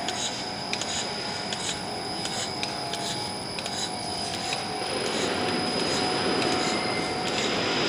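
Machinery of a PVC ceiling-panel production line running: a steady whir and hiss with a thin high whine and a faint regular ticking about twice a second, growing louder about five seconds in.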